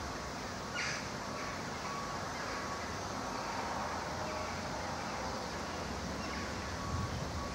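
Steady outdoor background noise, like distant traffic and breeze, with a short high chirp about a second in and a faint repeated high note throughout.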